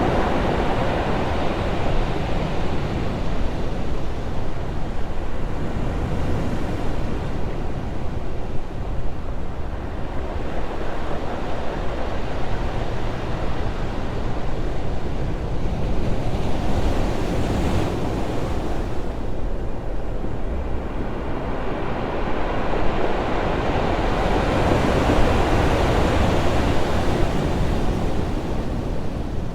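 Ocean waves crashing on rocks, with a constant low rumble of surf. The wash surges and eases about every eight to ten seconds.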